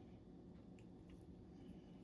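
Near silence: low steady room hum with a couple of faint clicks about a second in.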